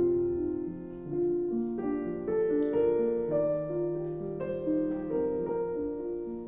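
Background piano music: a slow melody of held notes, a new note or chord every half second or so.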